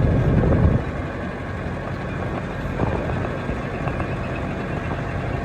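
Matbro Teleram 40D telehandler's diesel engine running, loud for the first second, then easing off to a steady, lower run.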